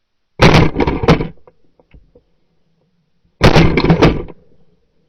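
Two shotgun shots about three seconds apart during a duck hunt, each a loud blast with a short echo trailing off.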